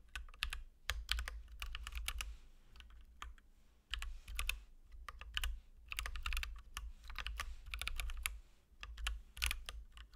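Typing on a computer keyboard, in quick runs of keystrokes broken by short pauses.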